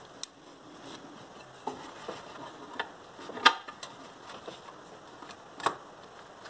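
A few scattered light clicks and taps as a small mounting bolt is worked by hand into its hole on the engine, the loudest about halfway through and another near the end.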